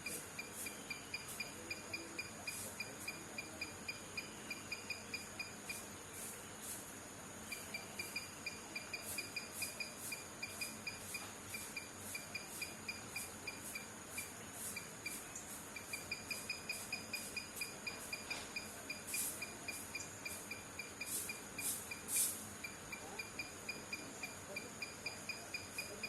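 Insects calling: a rhythmic chirping of about five pulses a second that stops briefly twice, over a steady very high-pitched trill, with scattered sharp high clicks.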